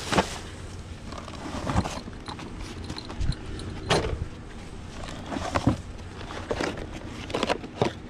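Rummaging through trash in a metal dumpster: irregular knocks and clunks of items being moved, with rustling of plastic bags.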